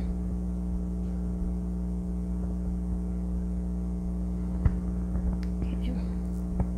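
Steady electrical mains hum with a low, even buzz, and a few faint clicks about two-thirds of the way through and near the end.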